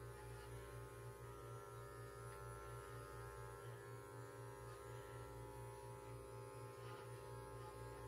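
Electric dog grooming clippers running with a faint, steady low hum.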